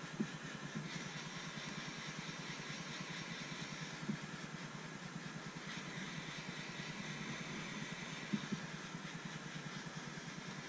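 Heat gun running steadily, a motor hum with airflow hiss, heating a heat-shrink solder-seal splice on a wire until its glue melts out and seals it. A few light clicks stand out from the hum.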